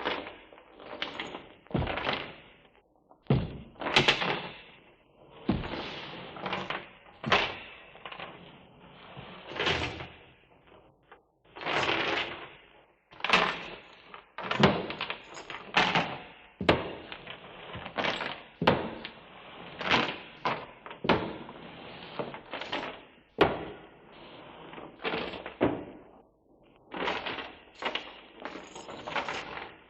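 A run of heavy bangs, thuds and crashes, about one a second and irregular, each dying away quickly.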